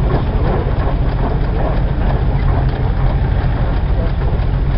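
Vintage Jones baler and its belt-driven machinery running, with a steady low rumble and a clattering haze over it.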